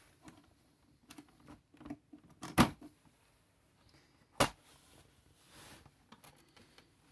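A string of sharp clicks and knocks, as from something being handled and set down, with two louder knocks about two and a half and four and a half seconds in.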